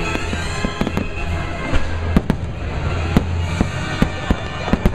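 Aerial fireworks bursting in a string of sharp bangs, coming more often in the second half, with music playing underneath.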